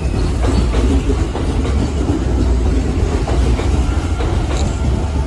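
Electric trains moving through a station: a steady low rumble with wheels clicking over rail joints, one train running along the far track while a Hanshin 8000 series train pulls in.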